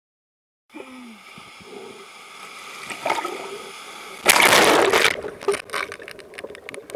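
Sea water sloshing and gurgling against a handheld camera in the surf, with a loud splash about four seconds in as the camera goes under, followed by crackly underwater bubbling.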